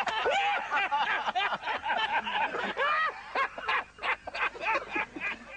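Voices making quick rising-and-falling vocal sounds without clear words, with short breathy bursts in the second half, stopping just before the end.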